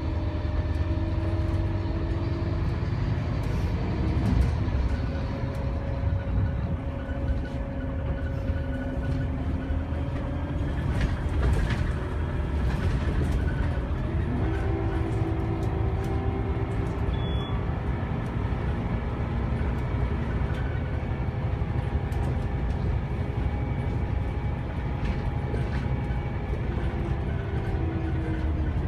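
Scania DC9 9.3-litre five-cylinder diesel engine and ZF Ecomat six-speed automatic driving a city bus, heard from inside the cabin. The engine note shifts in pitch several times as the bus changes speed, with a clear step about halfway through, and short rattles and knocks from the body come through now and then.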